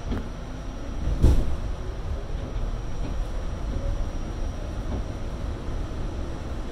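New York City subway car running through the tunnel, heard from inside the car: a steady low rumble of wheels on rail, with one loud knock about a second in.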